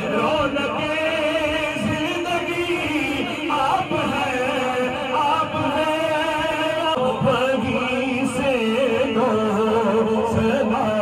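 A man singing an Urdu naat (devotional praise poem) into a microphone, in long, wavering melodic lines with held notes.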